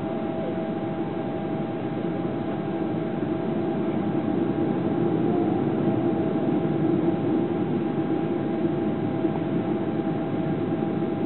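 Steady cabin roar of a Boeing 777-200LR on final approach, heard from a window seat over the wing: engine and airflow noise with a couple of faint steady hums, swelling slightly in the middle.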